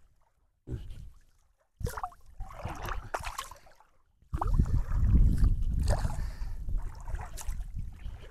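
Lake water splashing and sloshing as a small fishing net is hauled up by hand while wading. It comes in short broken stretches, with the longest and loudest in the second half, carrying a low rumble.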